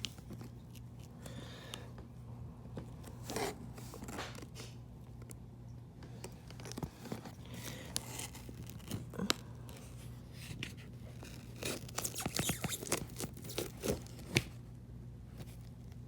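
A shipping box being opened by hand: scattered scrapes, tears and clicks of cardboard, tape and packing material, busiest about twelve seconds in, over a low steady hum.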